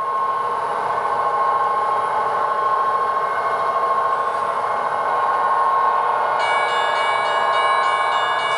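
Model train sound running steadily through a small speaker. A set of high ringing tones joins about six and a half seconds in.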